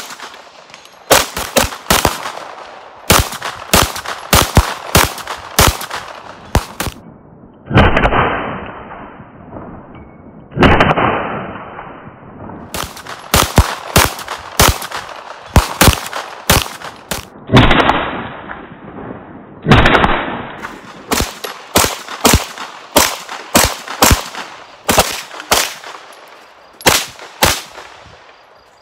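Ruger PC Charger 9mm pistol-calibre carbine fired repeatedly, sharp reports often coming several a second. Three times a single report rings out for about two seconds.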